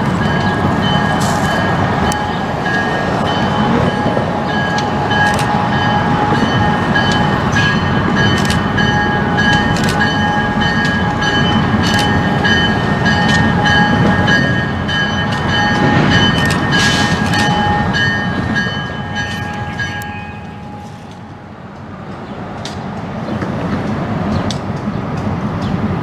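Diesel switcher locomotives rumbling as they roll slowly through a rail yard with freight cars. High steady ringing tones and scattered sharp clicks sit over the engine sound for about twenty seconds, then stop; the sound dips briefly and the engines grow louder again near the end.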